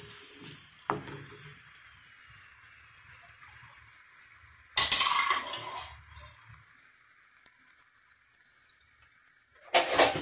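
Hot oil-and-ghee tempering of cumin, curry leaves and chillies sizzling in a kadai, the sizzle fading as the heat is off. A wooden spatula scrapes and stirs at first, with a loud clatter against the pan about five seconds in and another near the end.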